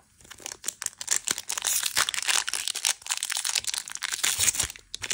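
Foil wrapper of a Pokémon booster pack crinkling in dense quick rustles as it is handled and torn open along the top edge.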